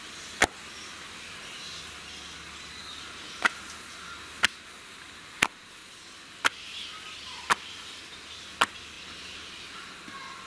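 Thin wheat parotta dough slapped against the tabletop as it is swung and stretched: seven sharp slaps, one just after the start, then six more about once a second.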